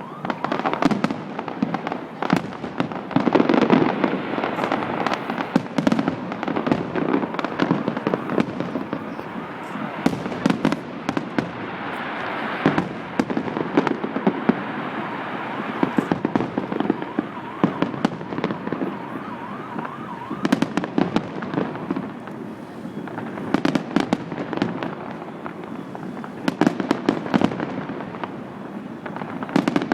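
Fireworks display going off in a rapid, continuous barrage of bangs and crackles, with louder bursts every few seconds.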